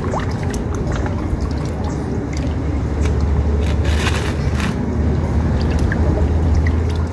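Hands washing skinned fish in a basin of water: irregular sloshing, squishing and splashing, busiest about four seconds in, over a steady low rumble.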